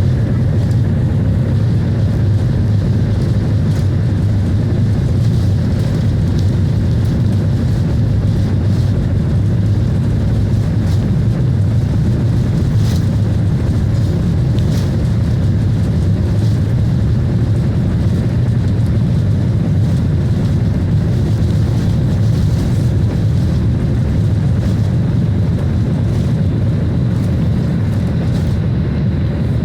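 Boeing 737-800's CFM56 jet engines during takeoff, heard from inside the cabin as a loud, steady low rumble with hiss above it and a few faint rattles.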